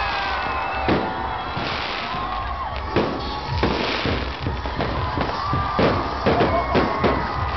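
Street fireworks going off among a crowd: repeated sharp bangs, a few spaced out early and several in quick succession in the second half, over the continuous din of crowd voices.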